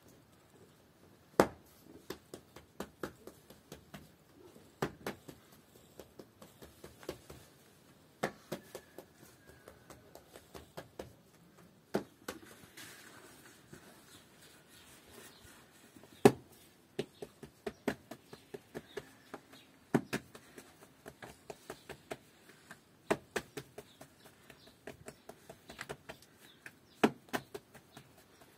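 A series of sharp knocks and taps: a loud strike about every three to four seconds, each followed by a run of quicker, lighter taps that fade out.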